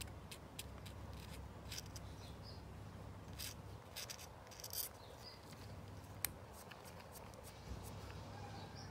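Hobby knife blade scraping misplaced paint off the edge of a plastic model kit part: a run of small dry scrapes and ticks, with one sharp click about two-thirds of the way through.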